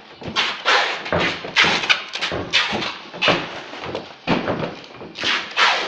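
Cardboard cartons being handled and stacked: a rapid run of thuds and scrapes as boxes are set down and slid against one another, about one or two a second.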